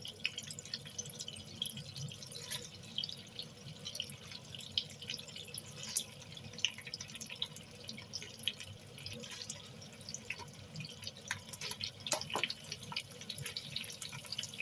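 Shell-on shrimp frying in melted butter in a pan: steady sizzling with many irregular crackling pops.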